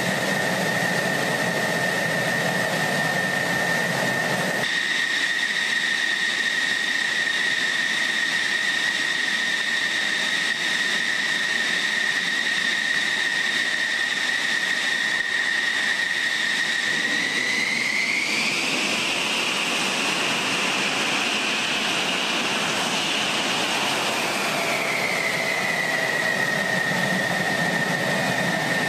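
F-16 fighter's jet engine running, a steady high-pitched whine over a rushing noise. About two-thirds of the way through the whine rises in pitch, holds a few seconds, then falls back.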